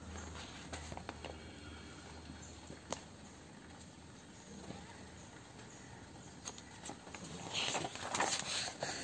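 A new paperback textbook being handled and opened: a few light taps and crinkles from the glossy cover, a sharp click about three seconds in, then a louder rustle of paper pages being turned near the end.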